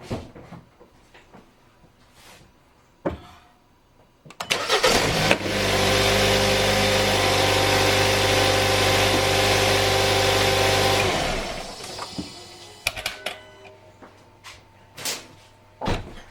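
Car engine cranked by the starter during a battery load test. It catches after a short rough burst, runs steadily for about six seconds, then stops. A few knocks come before and after.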